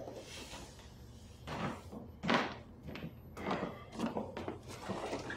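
A few soft knocks and rustles, about a second apart, of someone moving about and handling things at a kitchen counter.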